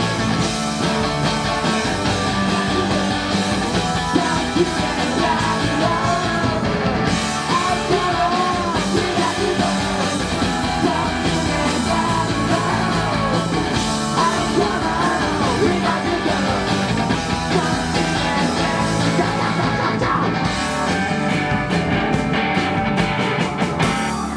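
Rock band playing live: electric guitar, bass, keyboard and drums, with a male lead singer singing and shouting over them. Near the end comes a fast run of sharp hits.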